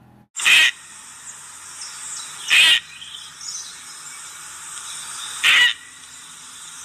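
An animal giving three short, loud calls a couple of seconds apart, over a steady high hiss.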